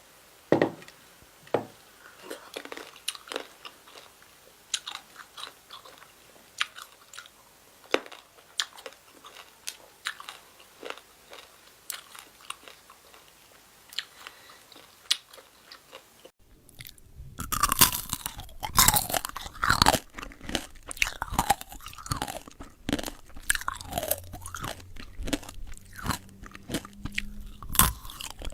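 Close-up mouth sounds of a person eating: chewing and crunching in sparse, sharp crackles. About two-thirds of the way through it turns suddenly louder and denser.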